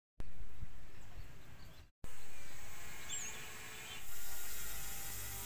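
Outdoor ambience: a steady hiss of insects with a short bird chirp about three seconds in; the sound cuts out for a moment about two seconds in.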